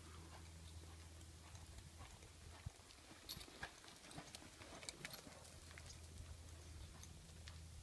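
Faint hoofbeats of a ridden horse on soft arena dirt, loudest about three to five seconds in as it passes close by.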